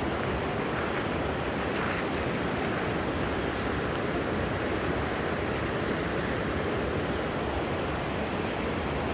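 Steady, even rush of falling water from a waterfall on a mountain river.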